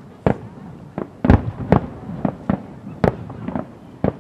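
Aerial firework shells bursting one after another: about nine sharp reports in four seconds, irregularly spaced, the loudest a little over a second in.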